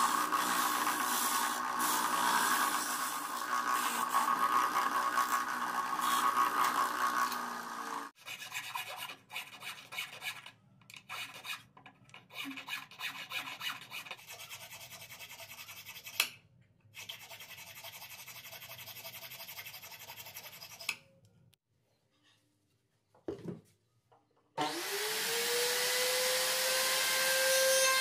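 A plywood-housed disc sander runs steadily while a small metal piece is ground against its disc. The sander then stops, and a wooden numeral is hand-sanded inside with a thin sanding stick: short, irregular rasping rubs, then a few seconds of near silence. Near the end, a workshop power-tool motor starts and spins up with a rising whine.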